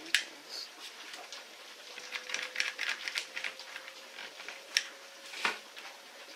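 Clicking of a one-handed trigger bar clamp being squeezed and adjusted on a glued-up wooden blank: a sharp click at the start, a quick run of clicks in the middle, and a duller knock near the end.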